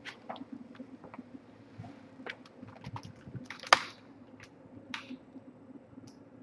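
Irregular light clicks and taps, with one sharper, louder click a little past halfway, over a faint steady low hum.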